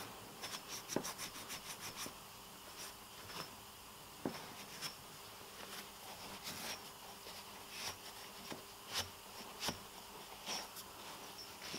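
A cloth rag rubbing and wiping the squirrel-cage rotor of a three-phase electric motor: faint scratching with scattered small clicks, and a quick run of ticks about half a second in.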